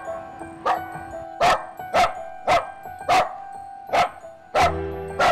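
A stray dog barking repeatedly, about eight sharp barks, defensive barking at people approaching, over background music.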